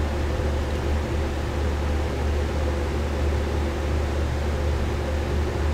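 Steady low hum under an even hiss of background noise, unchanging throughout.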